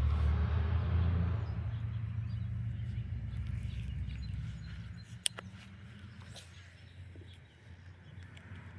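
A low vehicle engine rumble fading away over the first few seconds, with a single sharp click about five seconds in.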